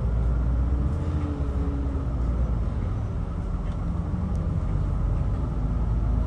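Casino shuttle bus driving, heard from inside the cabin: a steady low engine and road rumble with a faint humming tone above it.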